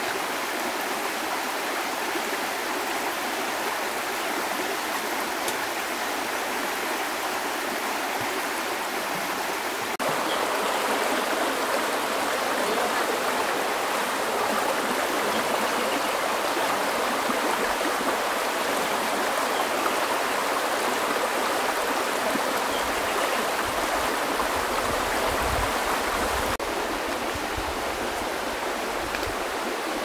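Shallow river rushing over rocks in small rapids: a steady wash of water noise, a little louder from about ten seconds in until near the end.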